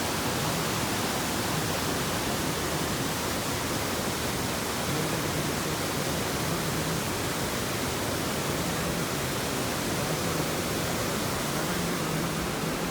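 A steady, even rushing noise with a faint low hum underneath.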